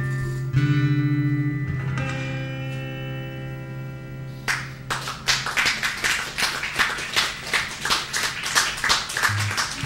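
Acoustic guitar chords strummed and left ringing. About halfway through, a fast, even rhythm of sharp percussive strokes starts up.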